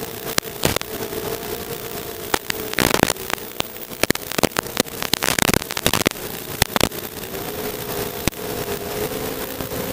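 FPV drone's electric motors and propellers whining, the pitch wavering with throttle; the whine fades out for a few seconds in the middle and comes back near the end. Crackling pops and sharp clicks run throughout and are loudest about three and five and a half seconds in.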